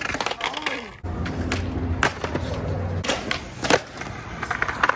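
Skateboard wheels rolling over the ground with a low steady rumble starting about a second in. The board lands and clacks sharply twice, about two seconds in and again under two seconds later.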